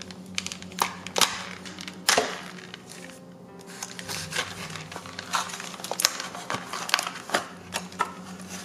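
Stiff plastic packaging crinkling, crackling and clicking as hands pry open a clear plastic box and its black plastic tray, in many irregular sharp snaps. Soft background music plays under it.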